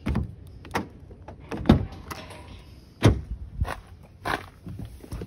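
Footsteps in shoes: a string of dull steps, roughly one a second and unevenly spaced.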